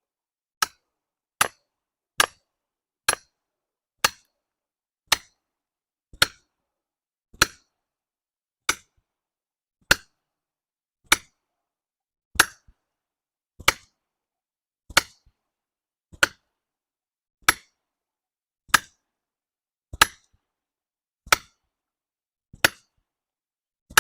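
About twenty sharp, evenly paced blows that slow from under a second apart to about 1.3 seconds apart: a hatchet set as a wedge in a felling cut being hammered in to force a backward-leaning tree over.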